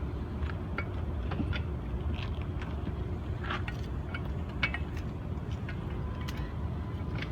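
Scattered light metallic clicks and clinks of tools at work on a car's wheel and jack, over a steady low rumble of road traffic.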